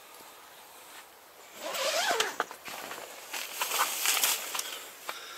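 Tent door zipper being pulled open in two runs, with nylon tent fabric rustling.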